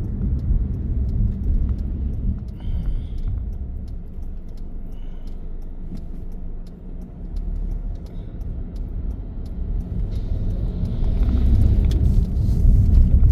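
Low road rumble and wind noise inside a moving car's cabin. It eases off in the middle and grows louder near the end.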